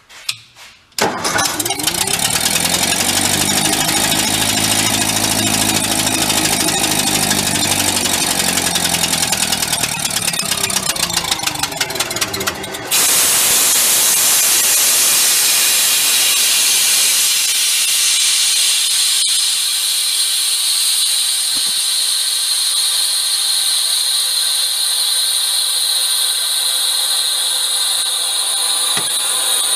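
Gasoline engine of a vintage engine-driven air compressor starting about a second in and running with a pulsing beat. It stays at idle speed because the throttle governor does not open up under load, and the owner suspects an exhaust manifold leak. At about 13 seconds a loud steady hiss of rushing air suddenly takes over.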